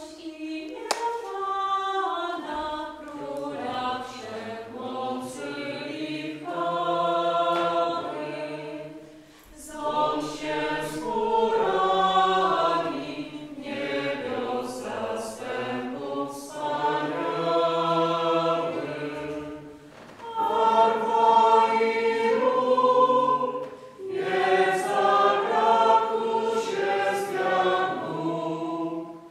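A choir singing, several voices together in long sung phrases with short breaks between them.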